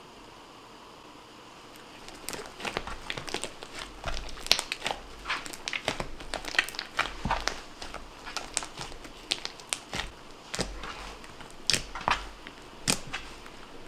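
Thick, wet clear-glue slime, foamed with baking soda and citric acid, being squeezed, stretched and kneaded by hand. It gives an irregular run of quick crackling pops that starts about two seconds in.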